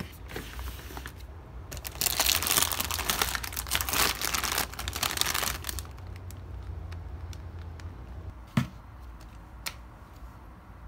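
Crinkling and rustling, as of packaging being handled, for about three and a half seconds, followed by a sharp click and then a fainter one.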